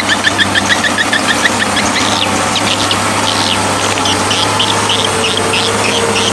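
A steady low motor hum with many short high bird chirps over it, a quick run of about four or five chirps a second at first, then more scattered calls.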